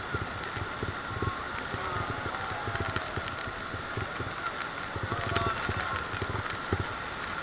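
Steady rush of Niagara Falls' water and spray close to the boat, with wind buffeting the microphone in gusts and a steady high whine under it. Faint passenger voices are mixed in.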